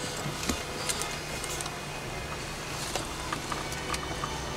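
Cabin noise of a moving vehicle: a steady low rumble from the road and engine, with a few small clicks and knocks.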